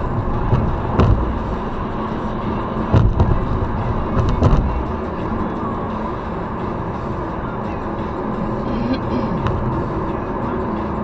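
Steady road and tyre noise of a car at highway speed, heard from inside the cabin, with a few short low thumps about one, three and four and a half seconds in.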